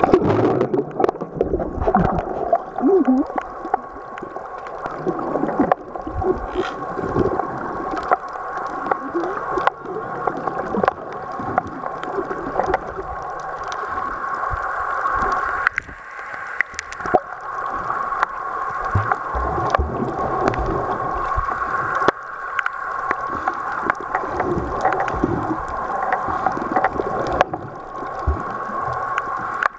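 Underwater sound through a waterproof compact camera's sealed microphone: muffled water noise with bubbly gurgles and a constant scatter of sharp clicks and crackles, over a steady thin tone.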